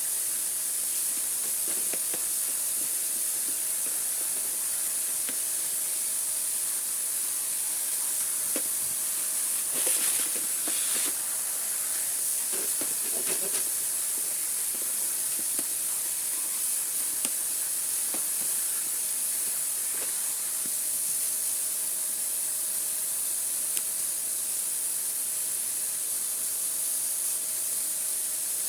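Vacuum cleaner motor running steadily with a strong high-pitched hiss and a steady hum, with a few knocks and rattles about ten to fourteen seconds in as it is moved around.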